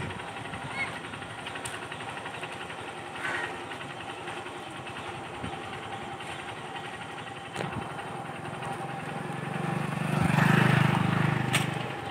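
A motorcycle engine passing close by: it grows louder from about eight seconds in, is loudest near the end, then fades away.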